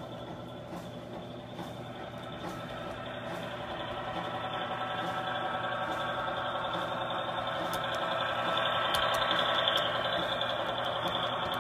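HO scale model passenger train running on the layout: a steady hum with many tones that grows louder as the train approaches and passes, loudest about nine to ten seconds in, with a few faint clicks around then.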